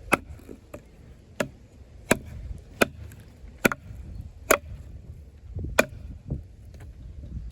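A wooden baton knocking a fixed-blade bowie knife (Off-Grid Caiman XXL, D2 steel) deeper into a piece of wood to split it: about seven sharp knocks, roughly one a second, with a few lighter taps between.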